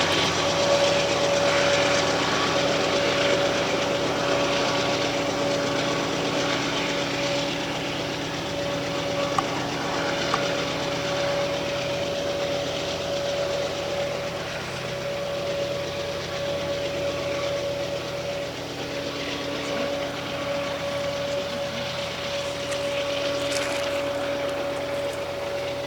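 Diesel freight locomotives running at full throttle (notch 8) on a loaded train climbing a steep grade: a steady engine drone with a constant high whine, slowly fading.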